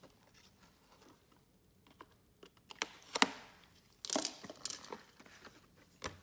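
Plastic wrapping on a trading-card hobby box being torn open and crinkled. Faint ticks give way to a few sharp rips about three seconds in, followed by a burst of crinkling and smaller crackles.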